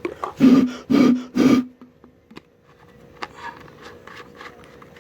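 Three quick, loud rasping scrapes in the first two seconds, each under half a second and carrying a low hum, followed by a few faint clicks.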